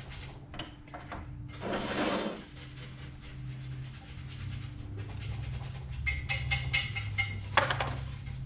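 Steel transmission parts being handled on a workbench, clinking and clattering against each other, with a short scraping rush about two seconds in, a run of ringing clinks later on and a sharp clank near the end.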